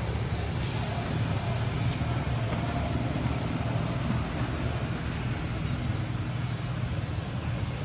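Steady low outdoor background rumble with a thin, steady high-pitched whine over it, and a few faint high chirps near the end.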